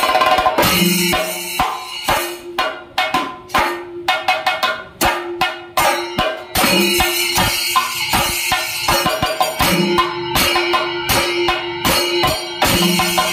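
Thayambaka drumming: chenda drums beaten with sticks in fast, dense strokes over ringing elathalam cymbals. The strokes thin to separate beats for a few seconds, then build back to a dense roll.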